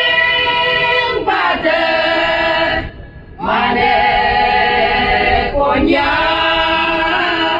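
A group of women singing together into microphones, in long held phrases with a brief break about three seconds in.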